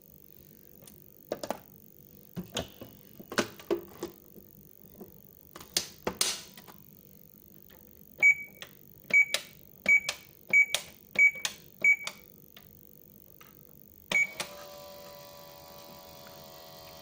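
Toy microwave being handled: a series of clicks and knocks, then six short high beeps as its buttons are pressed, about one every 0.7 s. A further beep about 14 s in, and the toy's steady electronic hum starts up as it is set running.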